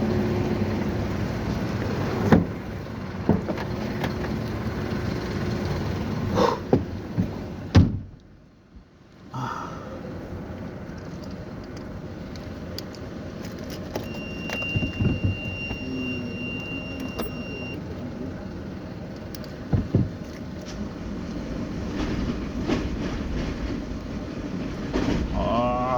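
A vehicle engine running steadily, with several sharp clanks and knocks, and a steady high beep lasting a few seconds in the middle.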